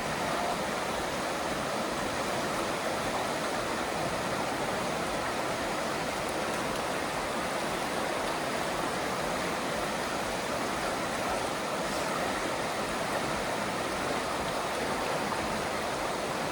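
Creek water rushing over rapids: a steady, even rush.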